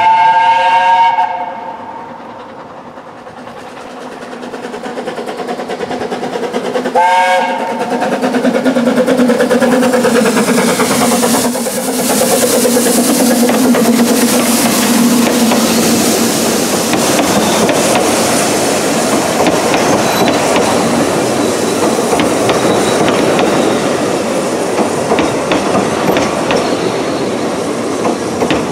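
Double Fairlie narrow-gauge steam locomotive sounding its whistle, first a loud blast of about a second and a half, then a short toot about seven seconds in. It then passes close by with its carriages, a loud, steady rumble with wheels clacking over the rail joints.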